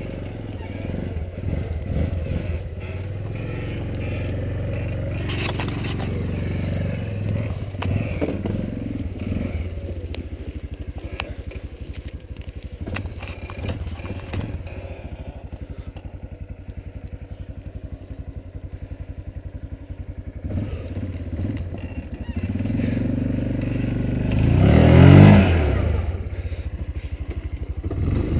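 Yamaha Kodiak ATV's single-cylinder four-stroke engine running at low revs as it crawls over rough ground. About 24 seconds in, it revs up sharply and falls back, then rises again near the end.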